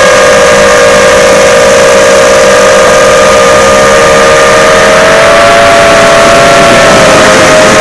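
FPV quadcopter's electric motors and propellers whining loudly as picked up by the onboard action camera, several close pitches drifting against each other, one climbing about five seconds in as the throttle changes, over a rush of air.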